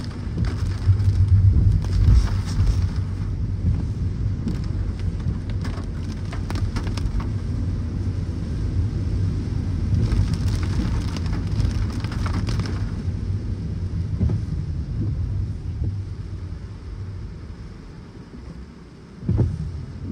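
Car driving through heavy rain: a steady low rumble of tyres on the wet road under a hiss of rain, with two louder stretches of hiss. The rumble dies down over the last few seconds.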